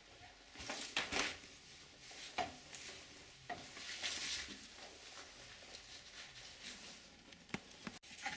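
A sliding glass balcony door being opened: handle and latch clicks with scraping and rolling swishes as the door panel is pushed aside, and a couple of sharp clicks near the end.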